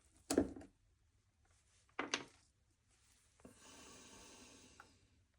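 Two sharp knocks about two seconds apart, then a rubbing noise lasting about a second and a half, from engine parts and tools being handled during a top-end assembly.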